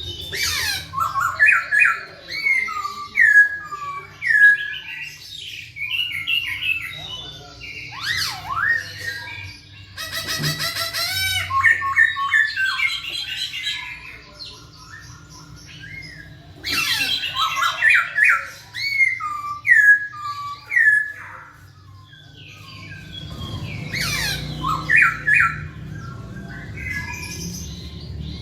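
A poksay Hongkong (a laughingthrush) singing loudly and continuously: phrases of quick slurred whistled notes and harsh calls, with a fast rattling run about ten seconds in and brief pauses between bursts.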